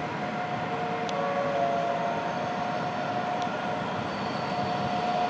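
Electric train approaching from a distance, a steady rumbling noise with several held steady tones over it. Two faint short clicks sound, about a second in and again about three and a half seconds in.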